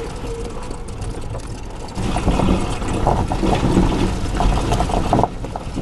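Tracker EV electric UTV driving over rough grassy ground: low rumble from the ride with the body rattling and knocking. It gets louder about two seconds in.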